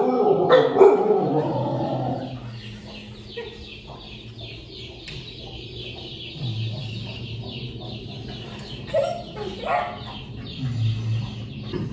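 Puppies yelping and whining, loudest in the first two seconds, then fainter calls with a run of quick high chirps.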